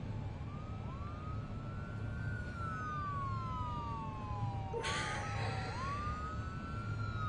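Emergency vehicle sirens wailing, two overlapping, each rising quickly and then falling slowly over a few seconds. A short rush of noise comes about five seconds in.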